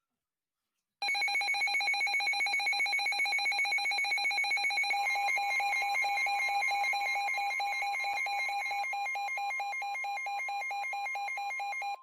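Weather radio alert alarm: a loud electronic alarm of rapid, evenly pulsed beeps that starts about a second in. A steady tone near 1 kHz, the NOAA Weather Radio warning alarm tone, joins under it about halfway through. It signals that a new warning is about to be read.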